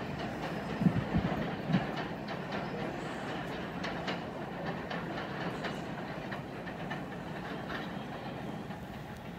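New York City subway train running on the track, its wheels thumping over rail joints a few times in the first two seconds, then a steady running noise that slowly fades as the train moves away.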